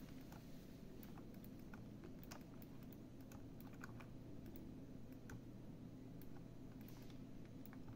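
Faint, irregular clicking of a computer keyboard and mouse being worked, over a low steady hum.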